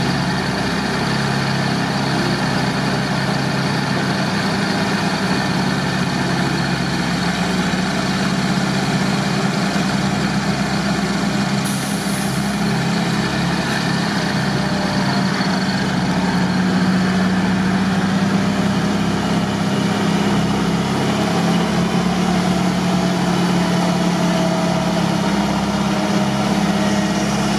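Off-road vehicle engine running steadily at constant revs while a cable pulls a UAZ through a swamp.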